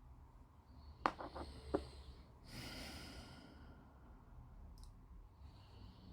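Faint clicks of small plastic model-kit parts being handled and pressed together, twice about a second in, then a breathy sigh about two and a half seconds in.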